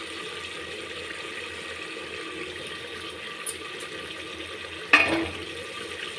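Tomato-onion-free masala gravy with boiled potato gently sizzling and bubbling in an open aluminium pressure cooker, a steady hiss. About five seconds in, a single sharp clank, like a spoon knocking the cooker.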